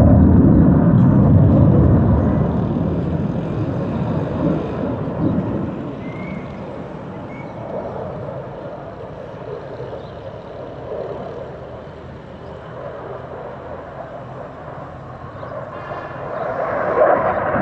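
F-16 fighter jet's engine noise overhead: a loud low rumble at the start that slowly fades over about ten seconds, then builds again near the end.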